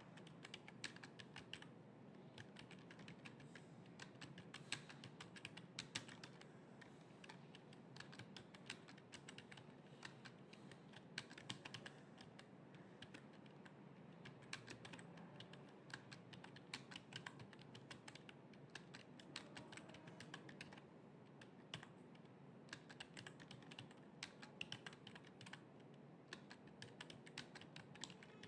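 Faint, fast typing on a computer keyboard: a steady stream of quick keystroke clicks with short pauses.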